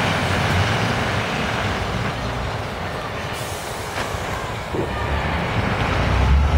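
Heavy fire trucks' diesel engines running as they drive past, with road noise; a deep low rumble builds near the end as a truck comes closer.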